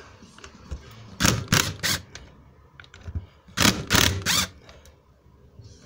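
Power driver with a 10 mm socket undoing the bolts that hold the plastic fan blades to the viscous fan coupling, in short rattling bursts: three about a second in and three more around three and a half seconds in.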